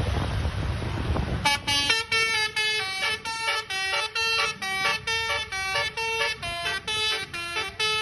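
Bus engine and road noise, then about a second and a half in a basuri multi-tone bus horn (telolet horn) starts playing a quick repeating tune of short notes.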